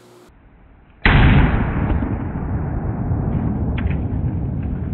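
A single shot from a Dan Wesson Supermag revolver in .357 Remington Maximum about a second in: a sudden loud blast that turns into a deep, muffled rumble lasting several seconds.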